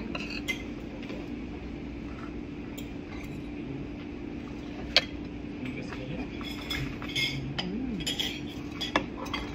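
Spoons and forks clinking against plates and dishes at a meal table, with one sharp clink about five seconds in and a run of clinks near the end, over a steady low hum.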